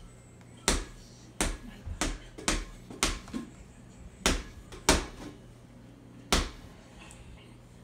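A baby's hand slapping and patting a cardboard board book: about ten sharp, irregularly spaced knocks, which stop about six and a half seconds in.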